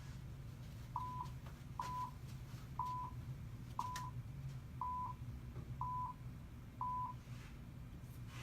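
iPad photobooth app's countdown: seven short beeps of one pitch, evenly spaced about a second apart, with a couple of faint clicks among them.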